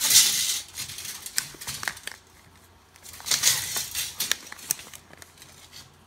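Rustling and scraping handling noise as a tape measure and a lavalier mic cable are slid along and repositioned, in two bursts about three seconds apart with scattered small clicks between.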